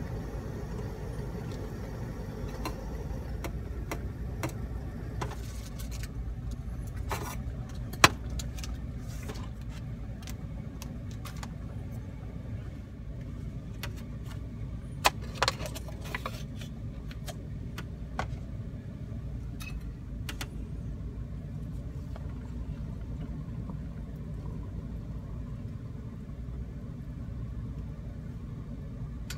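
Scattered light clinks and knocks of a stainless kettle, a metal cup and a cup noodle being handled on a table, over a steady low rumble. The sharpest knock comes about 8 s in and two more about halfway through.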